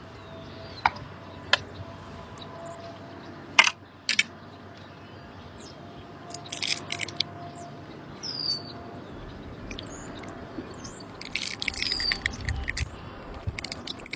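Birds calling, with a few short high chirps that slide downward. Around them are single sharp clicks and two bursts of rapid clicking, the second and longer one about halfway through.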